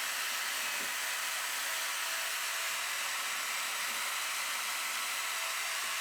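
A steady, even hiss with no pitch or rhythm.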